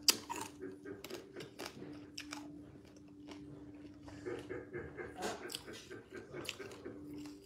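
Close-up chewing and biting as a person eats seafood from fisherman soup with her fingers: scattered wet mouth clicks and light crunches, the sharpest click right at the start, over a faint steady hum.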